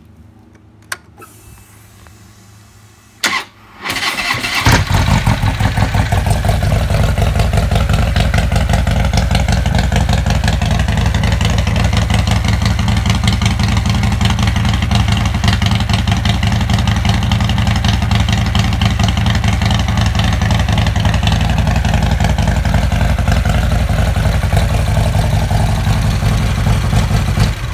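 Harley-Davidson V-twin bored out to 124 cubic inches, cold-started: a click, a brief crank of the starter about three seconds in, and the engine catches a second later. It then settles into a steady cold idle and cuts off at the very end.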